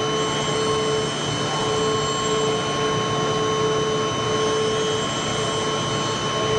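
The high-frequency WT62 spindle of a dental milling machine running while it mills a ceramic block. It gives a steady whine of several high tones over a haze of cutting noise, with a lower hum that breaks off and comes back about once a second as the tool moves through the ceramic.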